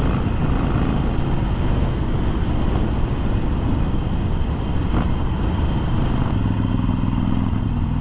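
Harley-Davidson Sportster Forty-Eight's 1200 cc V-twin engine running steadily under way, with wind and road rush over it. The engine note changes and comes through more clearly about six seconds in.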